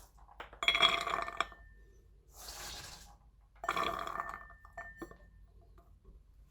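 Beans being tipped onto a plate in two pours, about a second in and again just past the middle, each a burst of clattering and clinking with the plate ringing briefly. A softer rustle comes between the pours.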